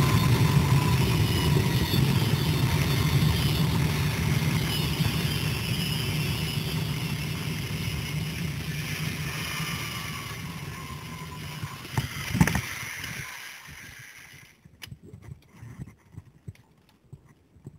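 Zipline trolley pulleys running along the steel cable with wind rushing past, a steady rumbling whir that fades as the rider slows and a faint whine that drops in pitch. About twelve seconds in, a sharp clunk as the trolley is stopped at the landing, then soft clinks of the metal rigging.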